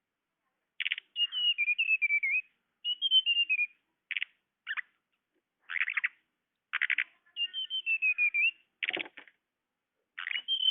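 Recorded tledekan (flowerpecker) calls used as a bird lure: sharp chip notes alternating with high, twittering phrases that drift down in pitch, in bouts separated by short silences.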